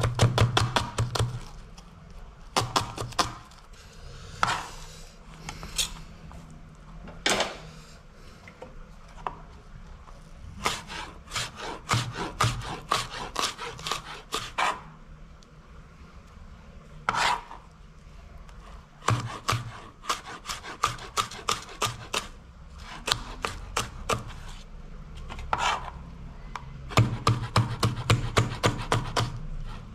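A broad-bladed kitchen knife chopping red onion, and later green chilli, on a plastic cutting board: runs of quick, sharp chops, about four to six a second, broken by short pauses.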